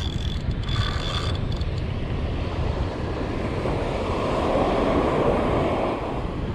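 Wind buffeting the microphone over the wash of ocean surf, with a wave rushing in louder about four seconds in.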